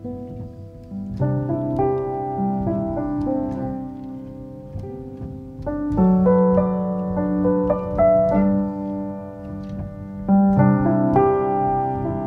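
Background music: a piano playing slow, sustained chords, with a new chord struck every few seconds.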